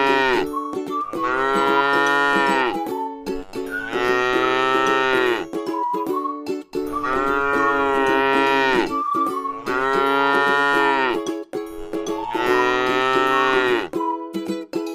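Cow mooing over and over, about six long moos spaced roughly two and a half seconds apart, each dropping in pitch as it ends.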